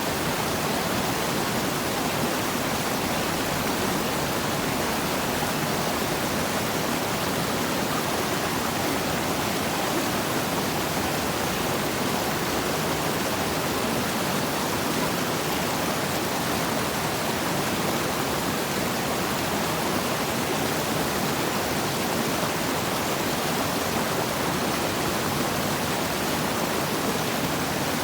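Waterfall: steady rushing of falling water, a constant even roar.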